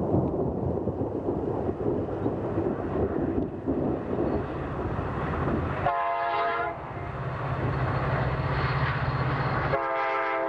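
Amtrak passenger train passing, its diesel locomotive sounding a multi-note air horn in two short blasts, about six seconds in and again near the end. Between the blasts there is a steady low drone, and a rumbling noise comes before the first blast.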